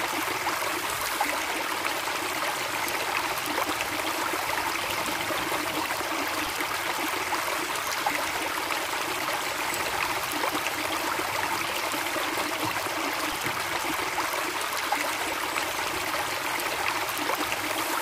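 Steady rushing of running water, a waterfall ambience.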